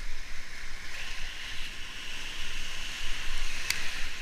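Whitewater rapids rushing steadily around a kayak, with a low rumble of water and wind on the microphone and a single sharp click near the end.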